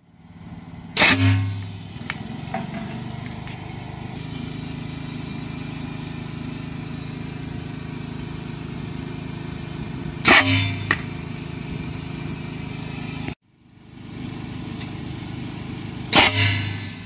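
Homemade compressed-air cannon firing three shots, each a sharp blast of released air with a low thump, about a second in, about ten seconds in and near the end. A steady mechanical hum runs underneath.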